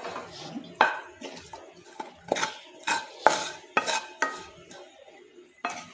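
A spatula knocking and scraping in a frying pan while scooping out stir-fried vegetable stuffing: a series of sharp, irregular clacks, some with a brief metallic ring.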